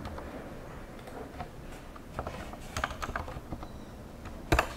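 Typing on a computer keyboard: a few scattered keystrokes, then one louder click near the end.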